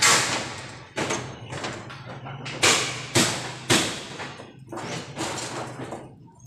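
Irregular loud bangs on corrugated iron roof sheeting, roughly one a second, each with a short metallic ring: workers hammering and prying the old roof apart during demolition.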